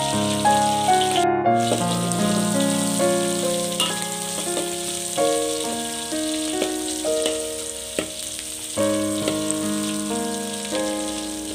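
Instrumental background music of steady, sustained notes over the hiss of shallots, garlic, chillies and salted fish sizzling in hot oil in a wok as they are stirred, with a couple of sharp clicks.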